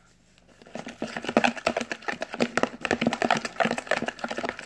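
Glue-and-air-freshener slime being stirred briskly with a toothbrush in a plastic container: rapid, irregular clicking that starts about a second in. The slime is still sticky and more air-freshener activator is being mixed in.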